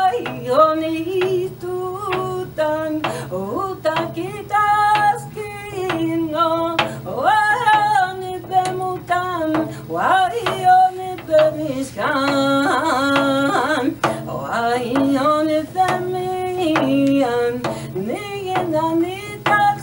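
A woman singing a slow song, holding long notes and sliding between them.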